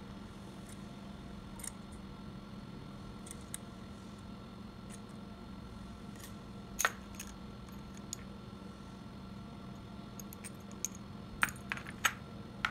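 Two-jaw bearing puller being worked by hand to draw a ball bearing off a brushless fan motor's rotor shaft: scattered small metal clicks, one sharper click about seven seconds in, then a quick run of metal clinks near the end as the tool is handled.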